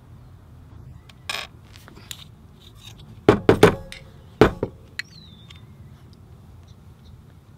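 Clicks and knocks from a Honda Ruckus/Zoomer 50 carburetor body and its small brass jet being handled on a workbench: a brief scrape about a second in, then a quick cluster of sharp knocks near the middle, with a couple more lighter clicks after.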